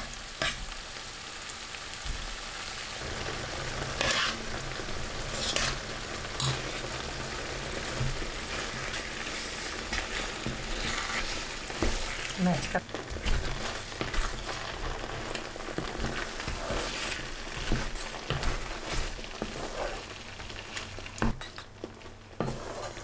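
Hot onion-tomato tadka sizzling and frying in a frying pan as cooked saag (mustard greens) is spooned in and stirred with a wooden spatula. Scattered scrapes and knocks of the spatula and spoon against the pan sound over the steady sizzle.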